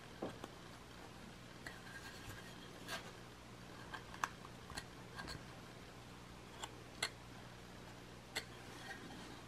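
Knife blade paring basswood by hand in whittling cuts: irregular short, sharp clicks and scrapes as each cut slices through the wood, over a faint steady hum.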